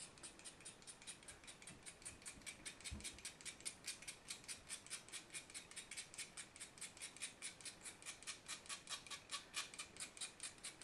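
Scalpel blade scraping a stick of white chalk in rapid, evenly spaced strokes, shaving off chalk dust; faint, light scratching.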